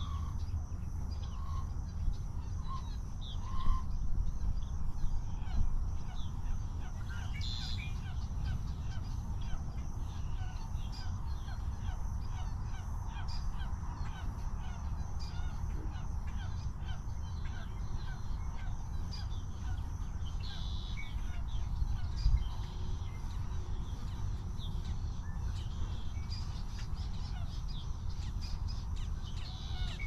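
Wetland birds calling at intervals, including harsh caw-like calls and short chirps, over a steady low rumble.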